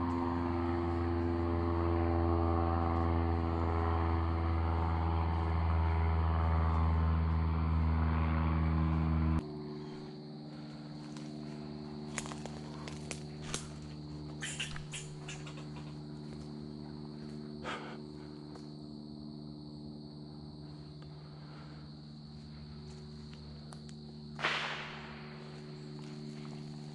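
Footsteps crunching through dry leaf litter, with scattered twig snaps and a brief brushing rush near the end, over a steady droning hum. The hum is loud for the first nine seconds, then drops abruptly to a quieter level. A steady high insect drone runs underneath.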